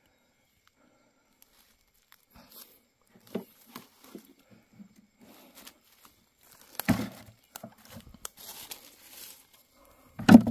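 Rustling and crackling of dense forest undergrowth and bamboo-shoot sheaths being handled, with scattered sharp knocks; the loudest knock comes just before the end.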